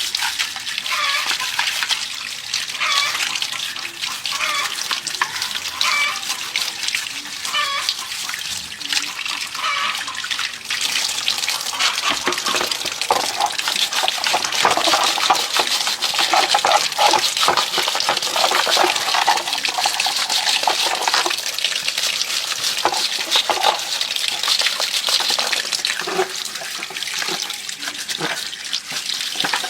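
Water running and splashing steadily, as from a tap or hose onto parts being washed, heavier in the middle stretch.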